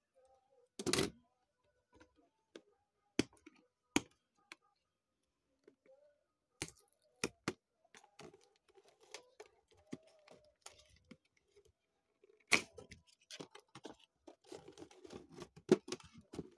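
A Hot Wheels cardboard box being handled: scattered sharp taps and knocks, then a stretch of rustling and scraping near the end.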